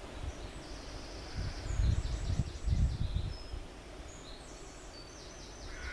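Small birds chirping in quick runs of repeated high notes, twice, over a steady background hiss. A low rumble swells and fades between about one and a half and three seconds in.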